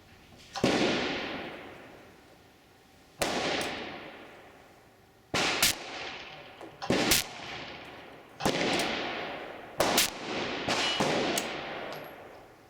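Replica Colt Paterson black-powder percussion revolver firing: about eight sharp reports at uneven gaps, several in quick pairs, each leaving a long echoing tail.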